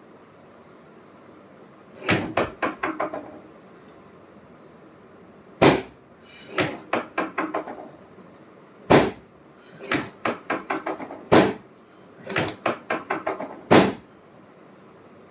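Sharp clicks and knocks of chiropractic adjusting. They come in four short bursts of rapid, fading strikes, with a single louder knock after each of the last three bursts and one more near the end.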